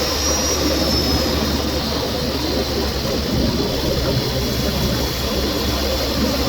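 Renault Megane's 1.2 TCe turbocharged four-cylinder petrol engine running under way, heard close up from inside the engine bay, with a faint thin high whistle that slides slightly down in pitch about a second in.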